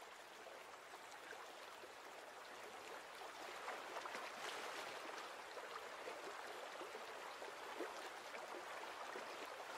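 Shallow river running over gravel: a faint, steady rush of water that grows a little louder about three seconds in.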